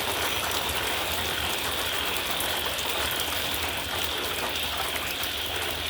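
Steady rain falling, with many small drop impacts ticking through it.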